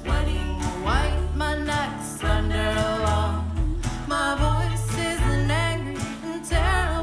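Folk band playing live: a cello holds long, low notes while a woman sings, her voice gliding between pitches, with acoustic guitar underneath.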